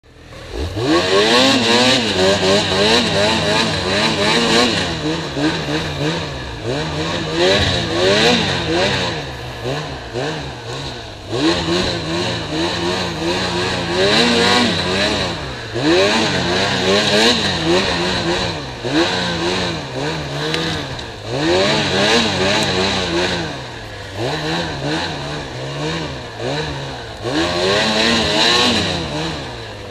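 Snowmobile engine revving hard and easing off again and again, its pitch rising and falling every couple of seconds as the throttle is worked.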